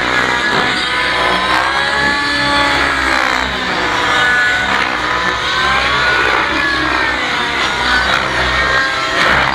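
Radio-controlled 3D aerobatic helicopters flying overhead, their rotors and motors whining with the pitch sweeping up and down as they throw the models through manoeuvres.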